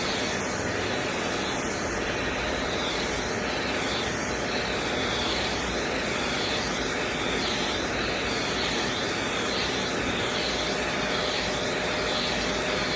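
Kidkin vacuum hair clipper running steadily, its suction fan giving an even rush of air as it cuts and sucks up the hair.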